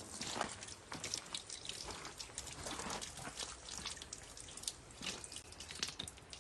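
Hands being washed under running water from a tap, with irregular splashing and dripping.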